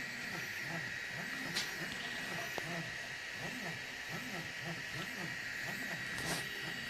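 EasyThreed K10 3D printer at work, its stepper motors whirring in repeated rising and falling pitch sweeps as the print head moves back and forth, over a steady high whine and hiss. Two faint ticks sound, about a second and a half in and near the end.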